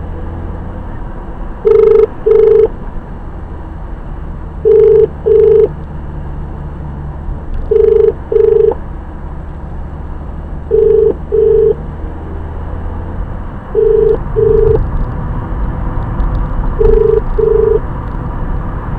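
Telephone ringback tone of an outgoing call ringing out, the Australian double ring: pairs of short steady beeps repeating about every three seconds. Underneath is the car's steady low engine and road hum.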